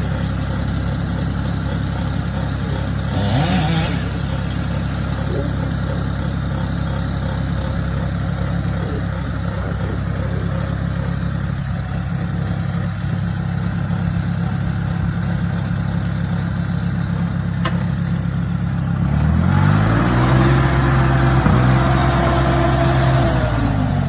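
Heavy equipment engine running steadily at idle; about 19 seconds in it revs up, holds the higher speed for some four seconds, then drops back.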